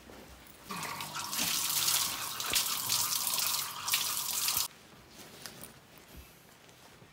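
Water running from a tap and splashing. It starts about a second in and cuts off abruptly after about four seconds.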